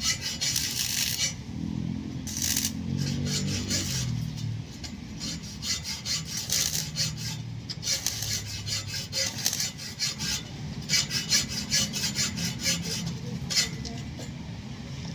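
A hand tool scraping or rasping against a hard surface in runs of quick, repeated strokes that stop and start every second or so.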